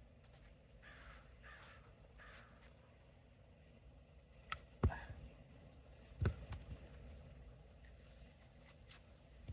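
Axe chopping a log for firewood: a light sharp tap, then two heavy thudding strikes about a second and a half apart, followed by a few smaller knocks.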